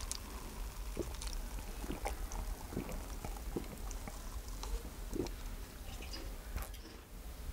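A person gulping down a drink from a plastic cup: soft swallows and small mouth and cup clicks, spread through.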